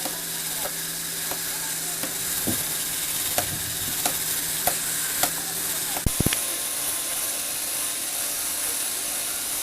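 Lego Technic lifter mechanism running: a small electric motor hums steadily while the plastic gears click about every two-thirds of a second. About six seconds in the hum stops with a short clatter of clicks, and a steady hiss carries on.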